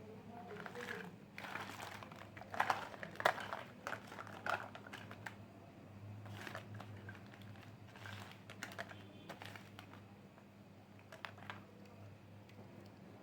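Small plastic toy kitchen pieces being handled and set down, giving irregular light clicks, taps and rustles. They come thickest in the first few seconds and again in the middle.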